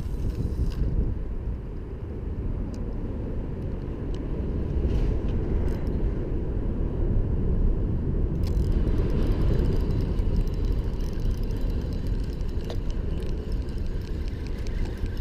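Wind buffeting the camera microphone, a low fluctuating rumble with a few faint ticks.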